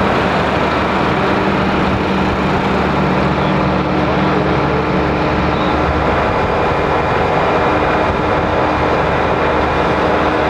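Steady engine drone with held hums in it, the lower one dropping away about halfway through.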